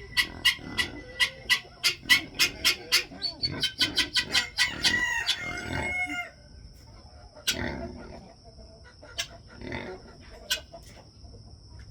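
Chickens clucking and cackling: a fast run of sharp, repeated calls for about the first half, then only scattered single calls.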